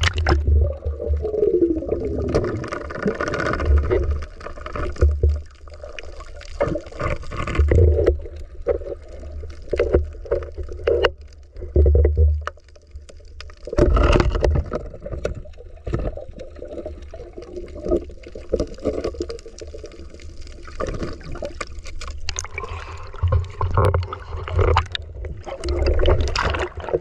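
Water splashing and gurgling around a camera as it moves between the surface and underwater, with a muffled underwater rumble, bubbles and irregular low thumps.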